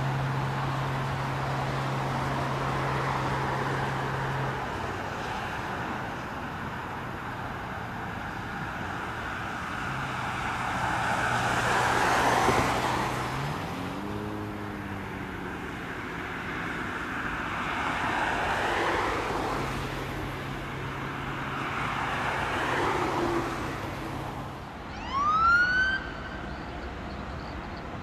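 Motorway traffic noise, swelling several times as vehicles pass, over a steady low engine hum. Near the end an emergency vehicle's siren gives one short, loud rising wail.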